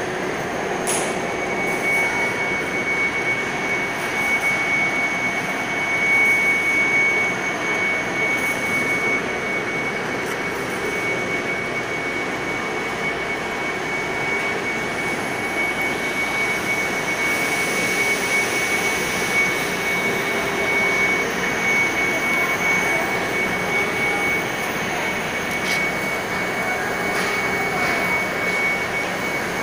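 Supertec 1+6 skip stranding machine (630 mm) running at speed: a steady loud whirring of the rotating bobbin cradles, with a constant high-pitched whine on top.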